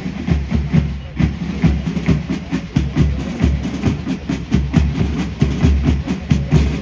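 Military band drum section playing a quick marching rhythm: crisp snare strokes over deep bass drum beats.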